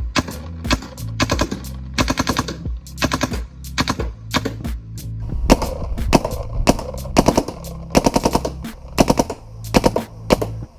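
Shocker RSX electropneumatic paintball marker firing fast strings of shots in PSP ramping mode, several rapid bursts with short pauses between. Background music with a steady bass runs underneath.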